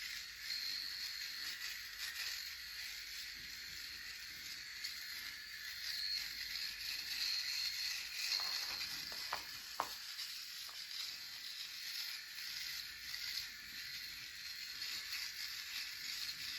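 Electric shaver running, a steady high whine and hiss as it goes over stubble, with two sharp clicks a little past the middle.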